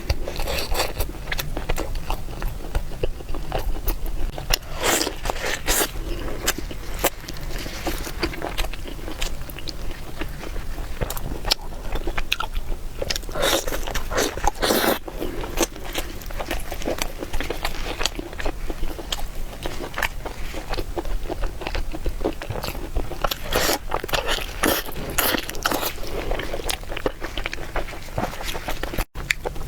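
A person eating close to the microphone, biting and chewing food with a steady run of short wet mouth clicks and smacks. The sounds are a little heavier around the middle and again near the end.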